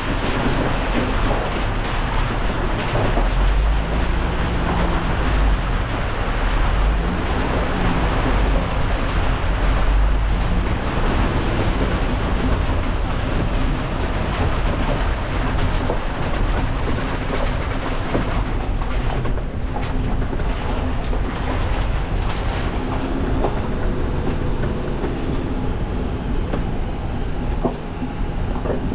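Off-road 4x4 driving over a rough gravel floor inside a tunnel: a steady engine drone whose pitch rises and falls a few times in the first several seconds, under a continuous rumble and rattle from the tyres and chassis.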